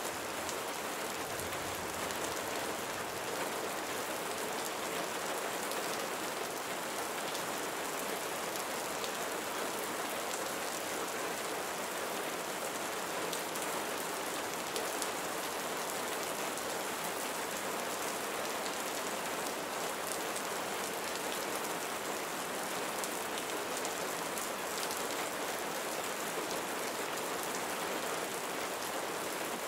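Steady rain falling, an even hiss with many small drop ticks, unchanging throughout.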